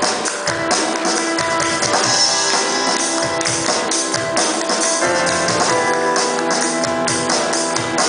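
Live band playing an instrumental passage of a pop-rock song: strummed guitars and sustained chords over a drum kit with steady cymbals.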